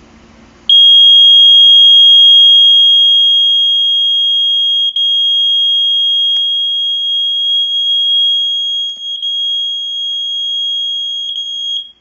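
ESL 320 smoke alarm's piezo horn sounding a single continuous high-pitched tone, very loud at close range (about 101.9 dB on a sound level meter held against it). It starts about a second in and cuts off just before the end.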